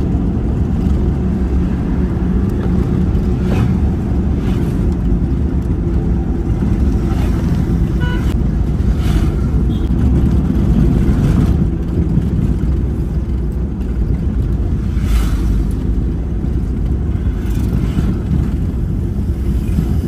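Steady engine and tyre rumble of a moving car, heard from inside its cabin.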